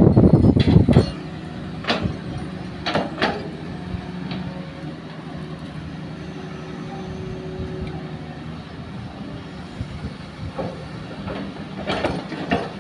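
Hitachi hydraulic excavator's diesel engine running steadily, with a heavy rumble and knocking of soil and rocks in the first second and a few sharp metal clanks around two and three seconds in. Near the end, more clatter as soil drops into the dump truck's steel bed.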